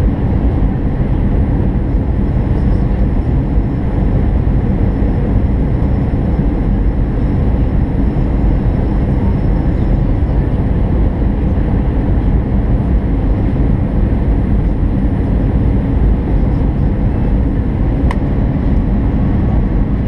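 Steady cabin noise of an Airbus A319 airliner on its landing approach: the jet engine and rushing airflow heard from a window seat beside the engine, a deep, even rush.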